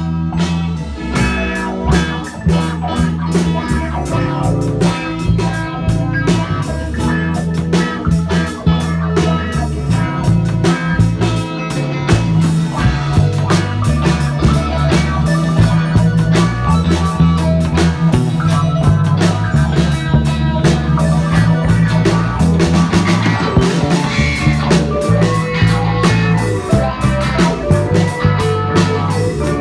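Rock band rehearsing: guitar over bass notes and a drum kit, playing steadily with dense drum hits.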